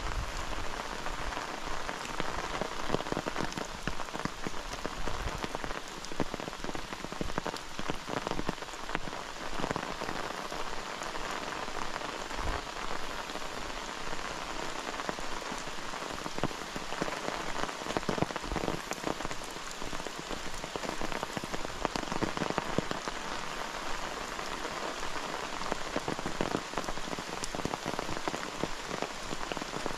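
Steady rain falling, with many sharp individual drop hits close to the microphone.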